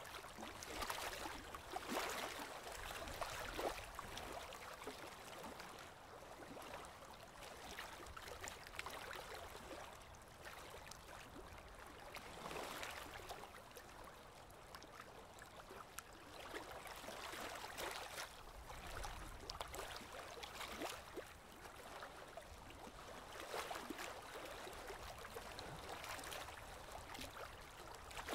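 Aquarium water bubbling and trickling, faint and steady, swelling and easing every few seconds with small scattered clicks and splashes.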